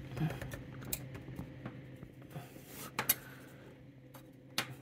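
Small metallic clicks and scrapes of a heated putty knife being worked through silicone along a door's metal trim and glass, with a couple of sharper clicks about three seconds in and another near the end, over a steady low hum.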